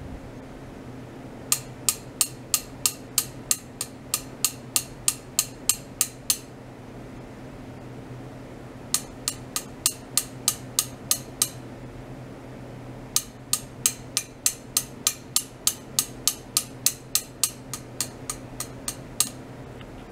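Sharp clicks at an even pace of about three a second, in three runs of several seconds each with pauses between, over a steady low electrical hum.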